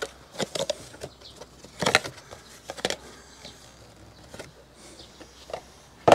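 Cardboard plant tray being handled: scattered crackles and flaps as it is turned over and flexed open, loudest about two seconds in, then a sharp knock near the end as it is set down on a stack of cardboard boxes.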